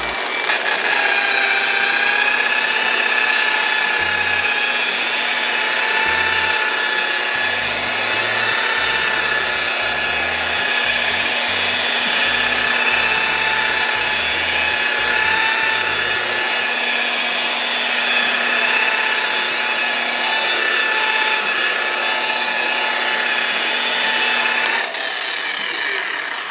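Electric motor of a TACKLIFE PPGJ01A rotary polisher running with a steady high whine at its second speed setting as its wool pad buffs a granite countertop. Near the end the whine drops in level.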